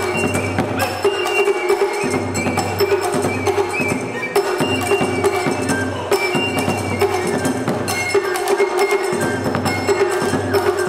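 Live Japanese traditional ensemble music: a busy run of sharp, clicking percussive strokes over held notes.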